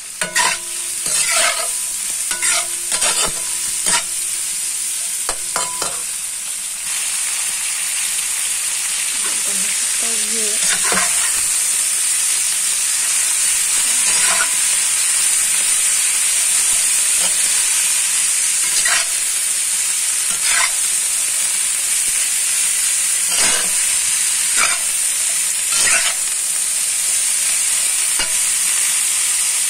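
Stir-fry sizzling in a metal wok, with a spatula clattering and scraping against the pan, frequent in the first few seconds and then every few seconds. About seven seconds in the sizzle turns louder and steadier, as tofu and bean sprouts fry together.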